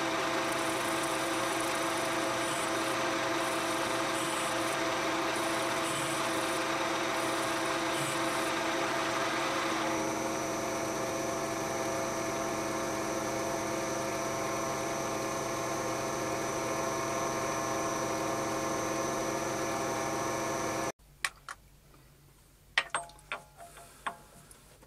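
Metal lathe running with a steady gear whine while a boring bar cuts the bearing housing bore out to size, with a hissing cut over roughly the first ten seconds. The running cuts off abruptly about twenty seconds in, and a few sharp metallic clicks and taps follow.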